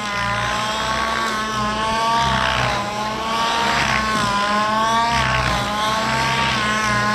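Miniature Aircraft Whiplash gas RC helicopter in flight: its two-stroke petrol engine runs steadily, its pitch wavering up and down as the load changes. A few swells of rushing rotor noise come and go.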